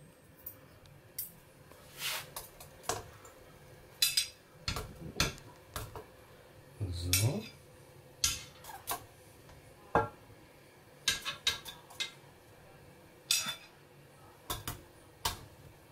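Metal kitchen tongs clinking and tapping against a steamer insert, pot and ceramic plate while sliced dumplings are lifted out. The sharp clicks and knocks come irregularly, a dozen or so.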